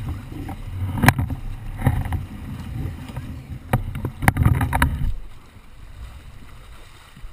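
Rumble and knocking aboard a sport-fishing boat, with several sharp knocks and thuds; about five seconds in it drops abruptly to a faint hiss.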